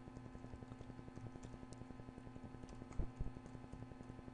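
Faint computer keyboard typing: a few scattered keystrokes, one a little louder about three seconds in, over a steady low electrical hum.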